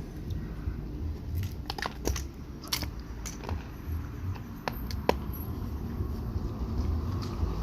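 Irregular light clicks and knocks of tools and metal parts being handled while a motorcycle front fork is taken apart, over a low steady rumble.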